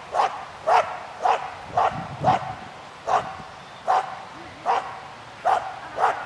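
A dog barking over and over as it runs, about ten short, sharp barks spaced half a second to a second apart.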